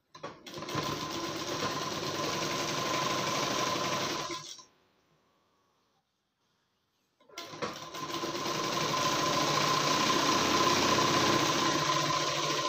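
Black domestic sewing machine stitching a folded fabric strip onto a blouse edge. It runs steadily for about four seconds, stops for about three seconds, then starts again and keeps running.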